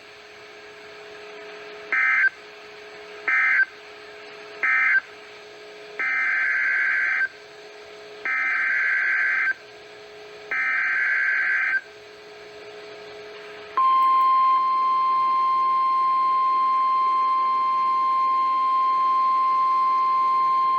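NOAA Weather Radio Emergency Alert System (SAME) data bursts: three short buzzing bursts ending the previous alert, then three longer bursts carrying the header of the next warning. About 14 seconds in, the steady single-pitch 1050 Hz weather radio warning alarm tone comes on and holds.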